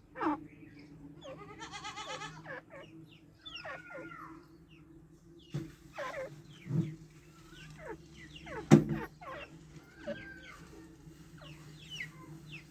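A bird chirping and whistling in short, varied calls, with a quick trill of repeated notes near the start, over a steady low hum. A sharp click about two-thirds of the way through is the loudest sound.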